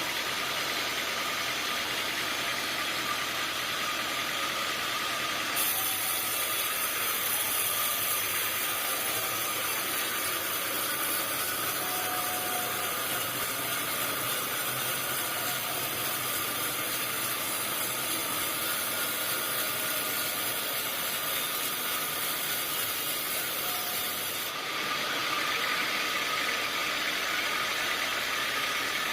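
Sawmill machinery running steadily, with a harsher high hiss that comes in about five seconds in and stops about five seconds before the end.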